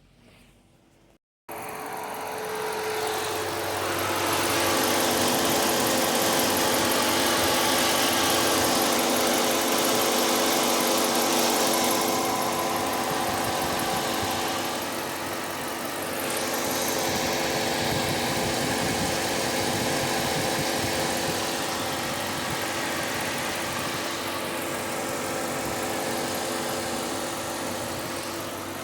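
Car engine running steadily, a steady hum with a strong hiss over it, starting abruptly about a second in.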